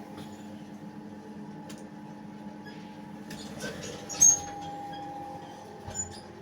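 Elevator running with a steady hum. About three seconds in there is a rattle, then a sharp loud clunk with a brief high squeak, and a smaller click near the end.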